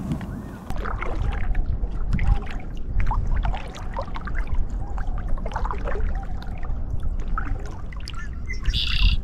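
Kayak paddle dipping and splashing, with water trickling and dripping off the blade in an uneven patter over a low rumble.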